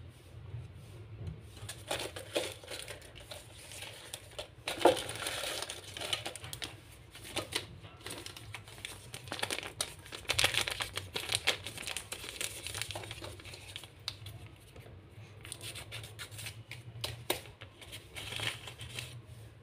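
Folded slips of lined notebook paper being unfolded by hand, crinkling and rustling in irregular spells, with a sharp crackle about five seconds in.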